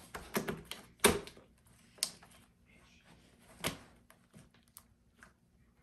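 Hands slapping and pressing homemade slime flat against a tabletop: a quick run of sticky slaps, then single slaps about a second apart, and a few faint ticks near the end.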